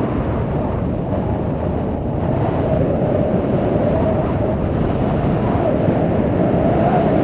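Steady wind rushing over an action camera's microphone, a loud, even rumble with a faint wavering hum in it, as heard from a paraglider in flight.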